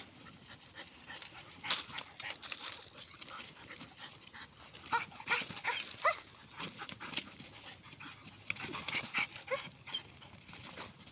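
German Shepherd puppies at play, giving scattered short whimpers and yips, with the rustle and crackle of a paper sack they are grabbing and tugging.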